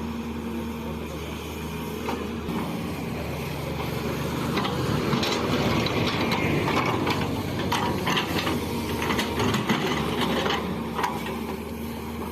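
Excavator's diesel engine running steadily, with irregular metallic clanking and rattling that grows louder about four seconds in as the machine works.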